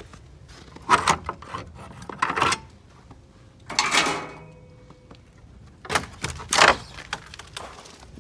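Footsteps crunching on a thin layer of snow, in uneven steps.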